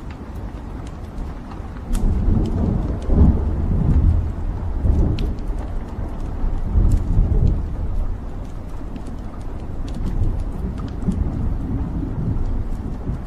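Wood fire burning in a fireplace: a low rumbling roar of flames that swells about two seconds in, with scattered sharp crackles and pops from the burning logs.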